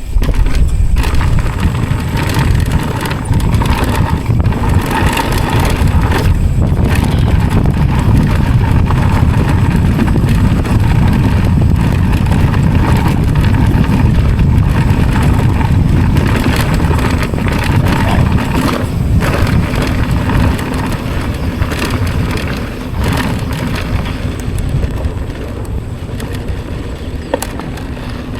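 Mountain bike riding a dirt bike-park trail: tyres crunching over dirt and rock, the bike rattling and knocking over bumps, with a heavy wind rumble on the microphone.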